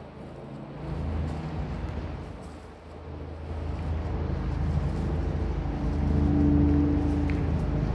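Road traffic: a motor vehicle's low engine rumble that swells about a second in and grows louder through the second half, with a steady hum toward the end.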